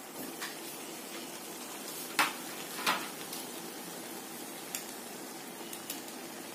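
Light clinks and knocks of kitchen utensils against a metal cooking pot, a few short ones with two louder knocks a little after two and three seconds in, over a steady background hiss.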